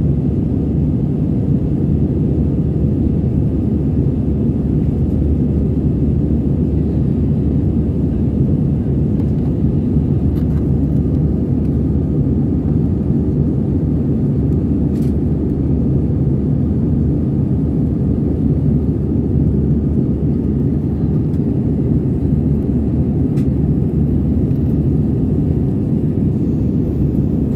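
Steady cabin drone of an Airbus A320-214 in flight, its CFM56-5B turbofan engines and the airflow heard from a window seat as a constant low rumble.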